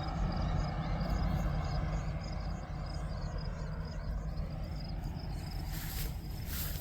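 Kartar combine harvester running steadily in a wheat field, a continuous low drone. A rush of noise comes in near the end.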